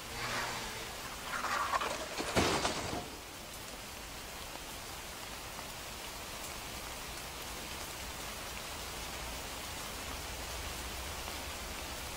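Heavy rain pouring steadily onto a road, an even hiss. In the first three seconds a few louder swishes and a sharp stroke rise over it, then the rain runs on alone and cuts off suddenly at the end.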